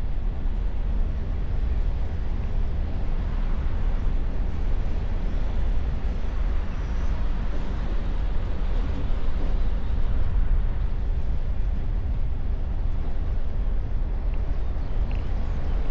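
A car driving at a steady speed, picked up by a microphone mounted outside on the bonnet: a constant deep rumble of wind and road noise with tyre hiss.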